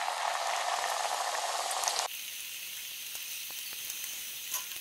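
Hot oil sizzling steadily as curd-cheese doughnuts deep-fry in a stainless steel pot. About two seconds in, the sizzle drops a little in loudness and changes character, then carries on.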